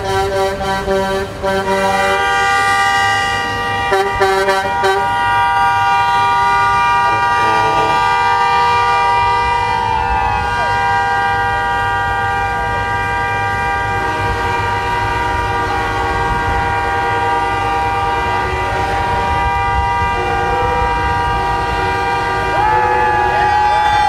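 Semi-truck air horns sounding continuously, several horns held together in a steady chord over a low rumble. Another, louder horn joins near the end.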